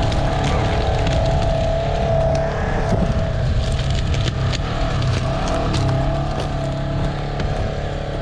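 Side-by-side utility vehicle engine running steadily as it drives slowly over logging slash, with scattered cracks of sticks and brush under the tyres.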